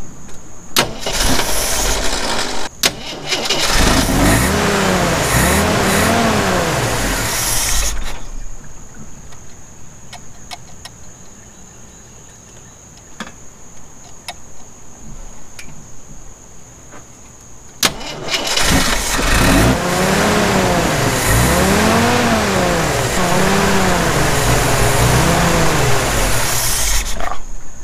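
1981 Jeep CJ7 engine with a Weber 32/36 carburetor, started about a second in and revved by hand at the throttle, its pitch rising and falling in repeated swells while the ignition timing is checked. It goes much quieter for about ten seconds midway, then is revved again in a run of rises and falls until near the end.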